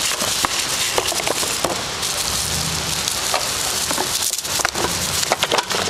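Bubble wrap and packaging crinkling and crackling as they are handled in a cardboard box, a run of sharp irregular clicks, over a steady hiss of rain.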